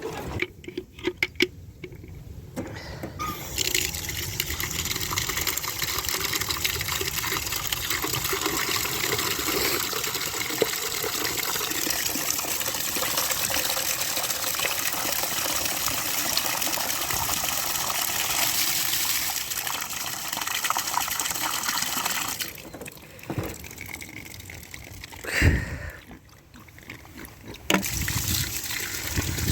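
Running water pouring steadily into a container, filling a waterer for the animals. It stops about 22 seconds in, a single knock follows a few seconds later, and the water starts running again near the end.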